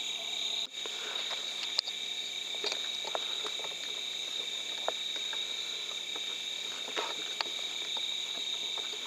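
Night insect chorus, crickets trilling steadily in several high overlapping tones, with a few faint scattered clicks.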